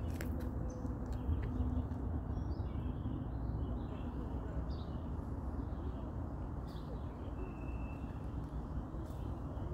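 Faint bird chirps and a short whistled note over a steady low background hum, with a few light handling clicks.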